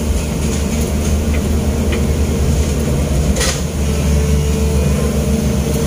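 Long-arm excavator's diesel engine running steadily, heard from inside the operator's cab as a loud low drone. One short sharp click comes about three and a half seconds in.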